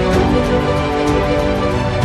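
Background music with held chords over a steady beat.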